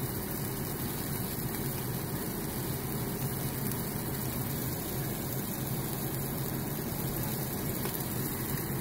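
Sausage patties frying in a cast iron skillet: a steady sizzle, with a low hum underneath.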